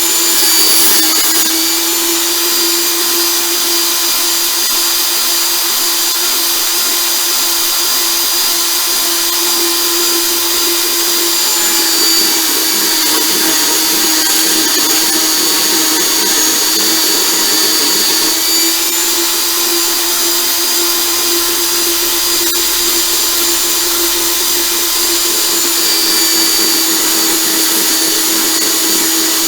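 Portable bandsaw running steadily while cutting pieces of scrap steel, its motor giving a constant hum.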